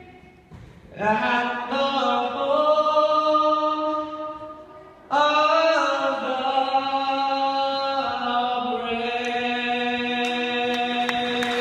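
A man singing the national anthem solo and unaccompanied: two closing phrases, the second stretched into long held notes. A few claps break in near the end as the last note is held.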